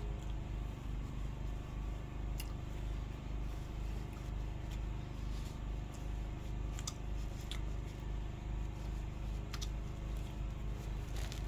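A steady low hum with a few faint, short clicks scattered through it from a plate as the last of a meal is eaten.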